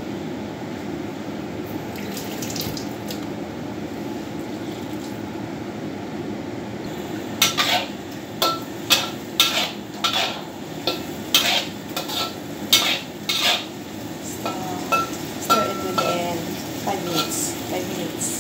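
Metal spatula scraping and clanking against a wok while stir-frying sea cucumber and mushrooms, the strokes starting about halfway through and coming one or two a second. A steady low hum runs underneath.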